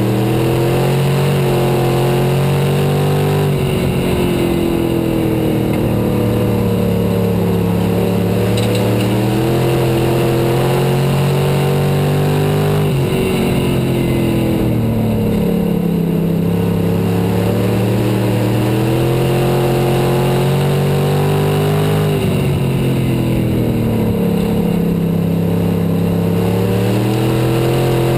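IMCA Sport Mod dirt-track race car's V8 engine at racing speed, heard onboard. The pitch drops sharply as the driver lifts for the turns, then climbs as the car drives off the corner and down the straight.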